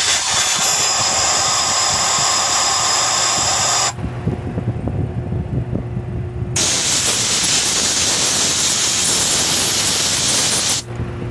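Two long blasts of pressurised gas hissing out, each about four seconds, with a steady high whistle in the first blast.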